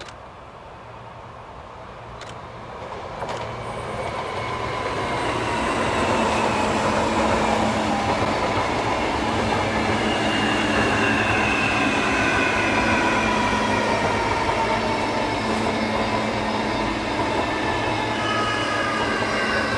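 A Lastochka electric multiple unit approaching and running past at speed. It grows louder over the first six seconds, then holds a steady rush of wheels on rail under a low hum. Whines from the electric drive slowly fall in pitch as the cars go by.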